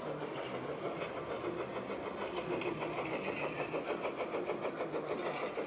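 A large-scale model train running over track and points, with a fast, regular pulsing rhythm.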